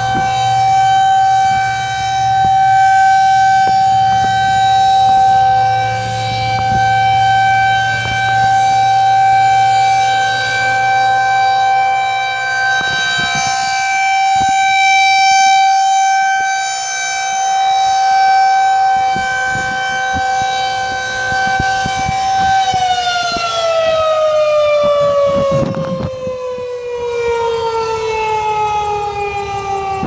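Outdoor tornado warning siren sounding a steady, piercingly loud high wail that swells and fades every couple of seconds. About three-quarters of the way through it starts winding down, its pitch falling steadily. This is the routine monthly test, sounded on the first Saturday of each month.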